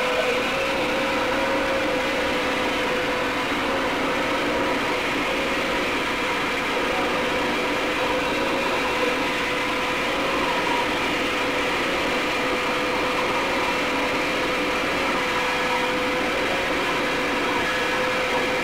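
Steady, unchanging hiss of a television tuned to blank static, with a constant hum running under it.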